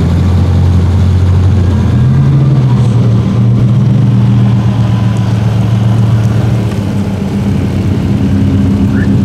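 BMW M5 E60's V10 with an Eisenmann race exhaust running at low revs as the car rolls slowly off, a loud, steady low exhaust note. The pitch steps up a little about two seconds in and settles back toward idle around seven seconds.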